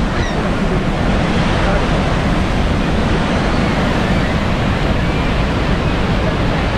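Bridal Veil Falls at Niagara, its falling water and spray making a loud, steady rush with no let-up.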